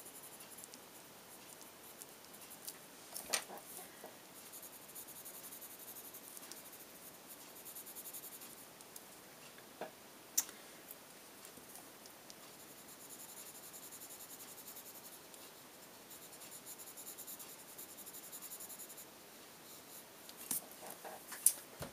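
Prismacolor colored pencil scratching faintly across card as it shades in colour, in two long spells of strokes, with a few sharp ticks in between.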